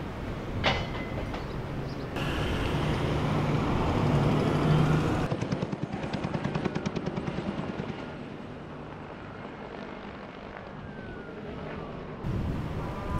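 Helicopter main rotor beating in a rapid, even pulse of about five beats a second for a few seconds near the middle. Before and after it comes steady outdoor noise with a low hum.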